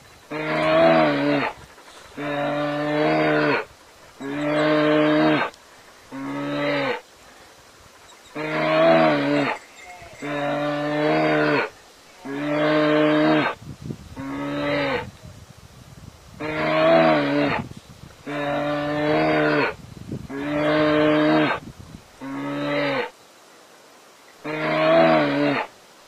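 A large animal's low, drawn-out call, steady in pitch, repeated thirteen times about every two seconds in a looping pattern of three long calls and then a shorter one.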